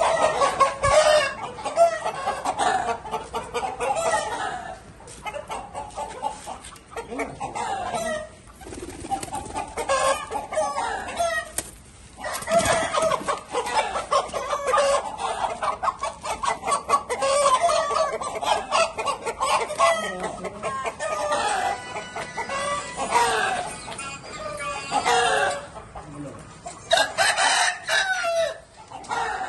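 A flock of game fowl clucking without a break, with roosters crowing now and then.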